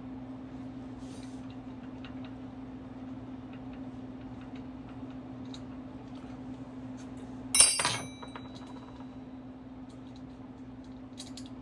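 Wrench working the mounting bolts out of a marine engine's raw water pump, with faint small clicks. About two-thirds of the way through comes one loud metallic clink that rings briefly. A steady low hum runs underneath.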